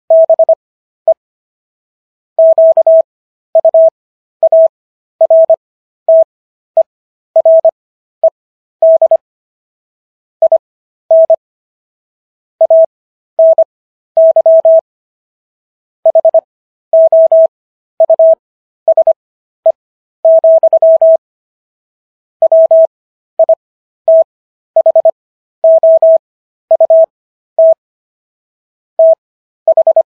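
Morse code sent as a single-pitch beeping tone in short and long beeps with longer gaps between letters and words: characters keyed at 25 words per minute, spread out to 15 words per minute overall by Farnsworth spacing. The message spells out the Third Amendment of the US Constitution.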